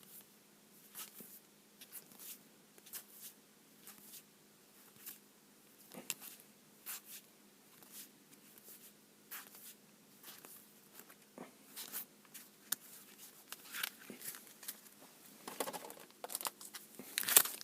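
Yu-Gi-Oh trading cards being handled and laid out one by one: soft, irregular flicks and slides about once a second, with a louder rustle near the end.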